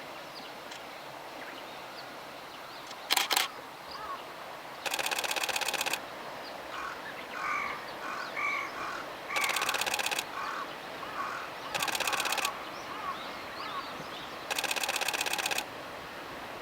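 A camera shutter firing in rapid bursts of continuous shooting, five bursts of up to about a second each. Birds call between the bursts.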